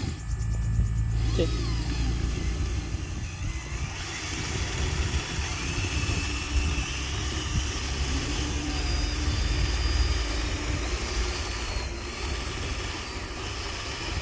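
Radio-controlled model truck running, with a steady low rumble and a thin motor whine that wavers up and down in pitch.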